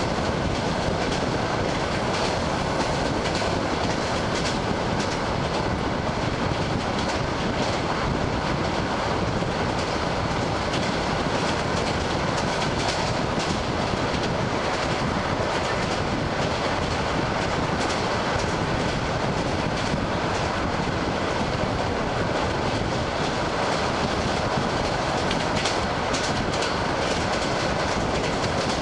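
ED9M electric multiple unit running at speed, heard from inside the carriage. Steady rumble of the wheels on the track with scattered clacks of the wheels over the rail joints.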